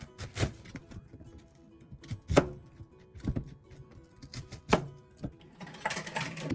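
Kitchen clatter during cooking prep: several sharp, irregular knocks of utensils on a counter, and a short rustle near the end, over soft background music.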